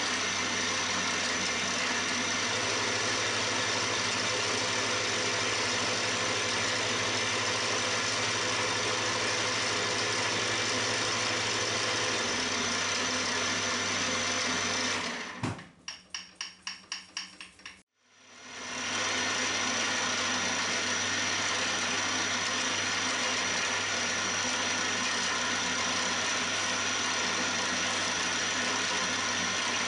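Milling machine end mill cutting metal blocks: a steady run of cutting noise over the spindle motor's whine. Just past halfway it drops for a couple of seconds to a quieter rapid pulsing, about four a second, then the steady cutting starts again.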